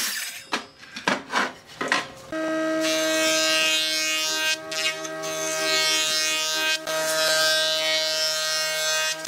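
A few sharp knocks and clatters of wood being handled, then a jointer starts running steadily with a constant whine and surface-planes a board, the cutterhead adding a dense hiss of cutting, with two brief dips.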